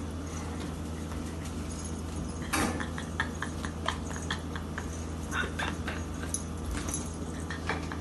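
A dog tugging and dragging a toy across a carpeted floor: scattered soft clicks and rustles, the strongest about two and a half seconds in, over a steady low hum.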